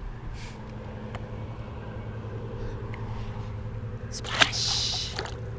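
A steady low motor hum, and about four seconds in a sharp slap with a short hiss of water as a smallmouth bass is dropped back into the lake.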